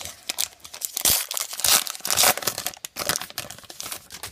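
Plastic wrapper of a baseball card pack being torn open and crinkled: a dense run of crackling that is loudest in the middle and thins out near the end.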